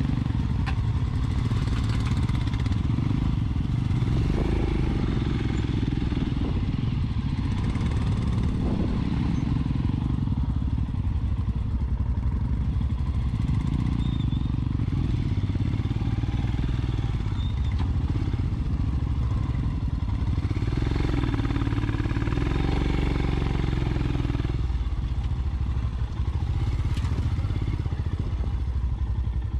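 Royal Enfield Scram 411's single-cylinder engine running at low revs as the bike idles and creeps forward off-road, its engine speed rising and falling a little past the middle.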